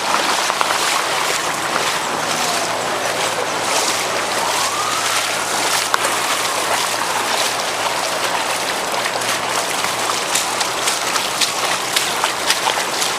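Floodwater rushing and sloshing steadily as a bicycle goes through a flooded road with a strong current, with short sharp splashes coming more often near the end.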